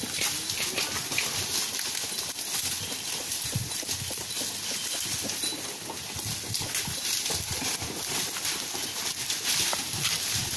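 A herd of goats browsing on a pile of leafy branches: a continuous busy rustle and crackle of leaves and twigs being pulled and stripped, with scattered hoof steps on dry litter.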